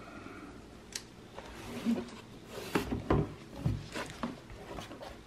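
Cardboard box handled on a wooden tabletop: a few light knocks and some rubbing of cardboard as the box is turned and stood upright.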